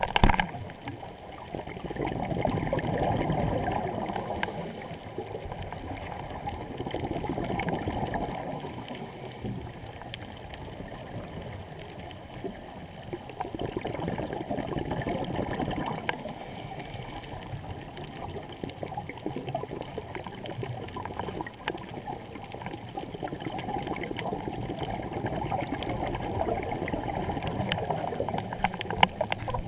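Moving water gurgling and splashing, swelling and easing every few seconds.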